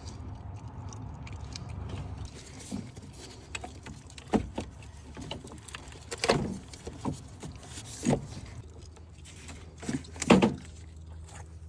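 Scattered clicks, knocks and light rattles of hand work in a car's engine bay as hoses and parts are handled, with a handful of sharper knocks, the loudest near the end.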